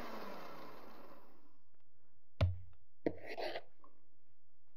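Electric hand mixer winding down after being switched off, its pitch falling. Then come two sharp knocks and a brief soft scrape as the beaters are lifted out of the stainless steel bowl of whipped mixture.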